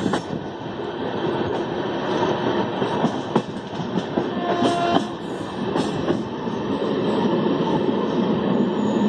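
Passenger train running along the line: a steady rumble of wheels on rail, with a few sharper clacks from the rail joints around the middle.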